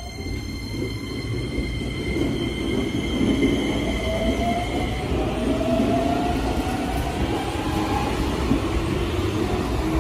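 Keikyu 1000 series electric train running past along the platform, with wheel-on-rail rumble and an electric motor whine that rises in pitch from about four seconds in as the train picks up speed.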